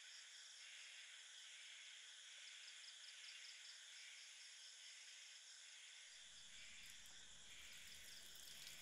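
Near silence: faint room tone hiss with a soft pulse a little more than once a second, and a low rumble coming in about six seconds in.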